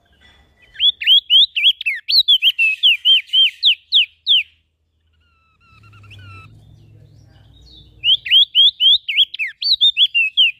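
Small songbird singing two loud phrases of rapid, sharply sweeping whistled notes, about four notes a second, the first phrase starting about a second in and the second near the end, with a quiet gap between them.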